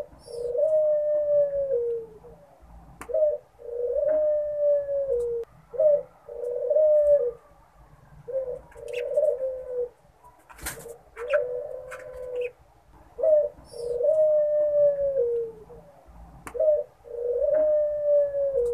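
Ring-necked (Barbary) dove cooing over and over, about seven calls, each a short note followed by a longer, slowly falling coo.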